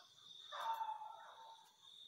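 Crickets trilling steadily in one unbroken high note. A dog barks once about half a second in, the loudest sound here.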